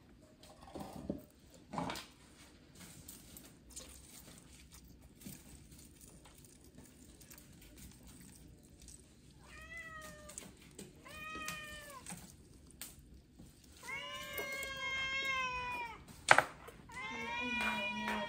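An animal calling four times with drawn-out, arching cries, the third the longest at about two seconds, with a sharp knock between the last two calls and a few light clicks near the start.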